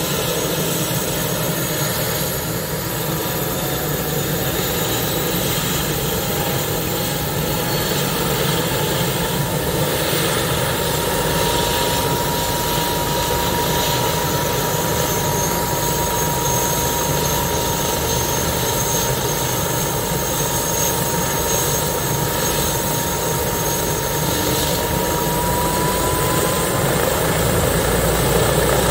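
Airbus H145 helicopter on the ground with its twin turboshaft engines running and its five-blade main rotor turning: a steady, loud turbine run with a whine that slowly rises in pitch over about twenty seconds before levelling off, as the engines run up ahead of takeoff.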